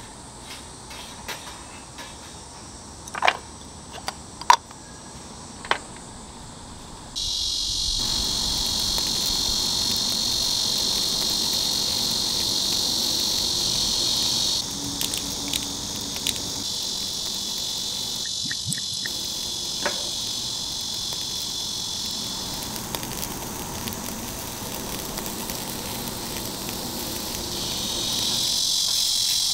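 Crickets chirping steadily in a high band, starting suddenly about seven seconds in. Before that, a few sharp metallic clicks from utensils against the stainless-steel grill grate.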